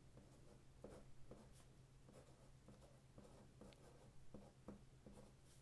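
Felt-tip marker writing on paper: faint, short scratchy strokes as letters are drawn.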